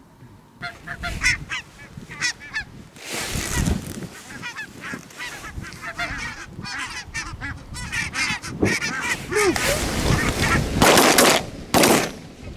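A flock of barnacle geese calling as they fly in over decoys: a dense chorus of many short, high yapping calls overlapping each other. A few loud bangs come near the end.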